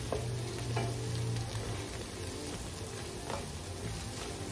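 Diced bell peppers, shallot and garlic paste sizzling in a stainless steel sauté pan as they are stirred with a spatula, with a few light scrapes of the spatula. A steady low hum runs underneath.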